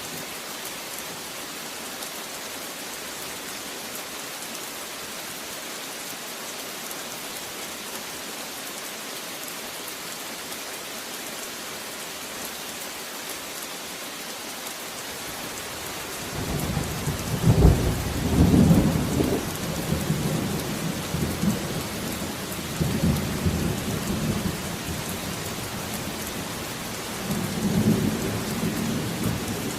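Steady heavy rain, with a long rolling rumble of thunder coming in a little past halfway and swelling in several surges.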